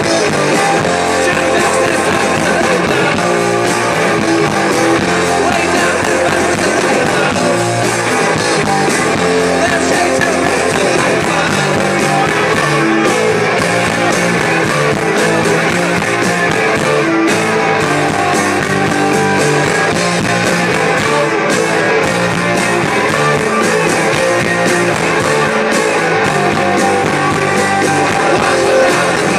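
Rock band playing live at a steady, loud level: electric guitars and drums with lead vocals.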